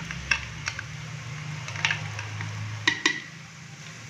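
A spoon knocking and scraping against a small glass bowl to shake ginger-garlic paste into a clay pot: about five sharp clicks, two of them close together near the end, over a steady low hum.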